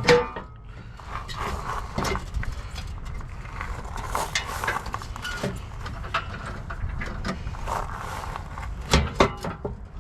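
Scattered knocks and clinks of metal parts and bolts being handled while a UTV bumper is refitted, with two sharper knocks near the end, over a low steady rumble.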